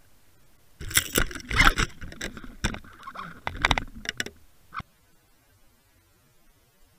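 Irregular knocks and scraping against an underwater camera housing as a pike strikes the towed swimbait and thrashes, stopping about five seconds in.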